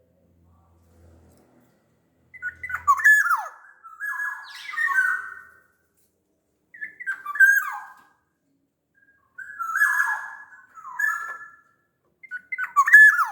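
Black-naped oriole (kepodang) singing: about six short fluting, whistled phrases with quick downward slurs, each lasting around a second and separated by brief pauses.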